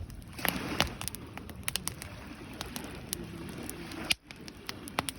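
Wood campfire crackling, with irregular sharp pops and snaps and one loud snap a little after four seconds, over the low rush of the burning flames.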